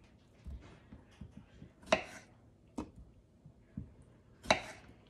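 Kitchen knife cutting small red potatoes in half on a wooden cutting board: a few separate sharp knocks as the blade goes through and hits the board, with softer handling taps between.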